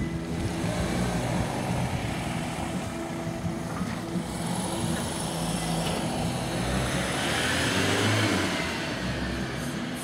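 Vehicles passing at a level crossing: steady road-traffic noise that swells in the second half as a van drives past close by.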